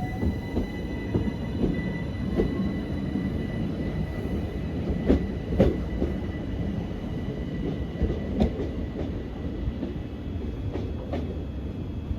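A Southern Class 377 electric multiple unit pulling out of the station, with a steady rumble and a faint steady electric whine. Its wheels click sharply over rail joints and points several times, loudest about five and a half seconds in.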